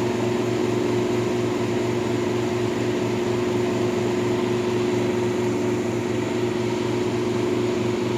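1958 Carrier 4,500 BTU window air conditioner running steadily, its fan blowing over the hum of its Tecumseh pancake compressor, with a low hum that pulses about four times a second.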